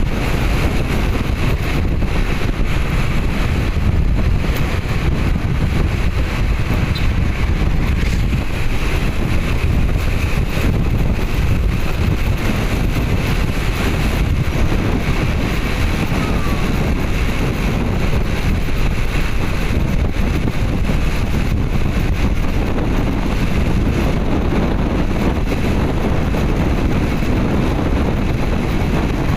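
Steady rush of wind buffeting the microphone over a continuous low vehicle rumble, as when riding along a road.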